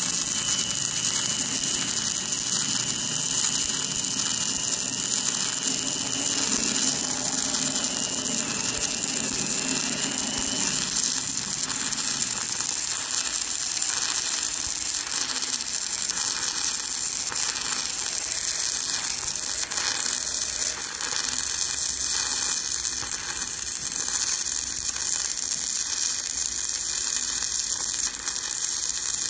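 Electric arc welding on steel: the arc sizzles and crackles steadily without a break.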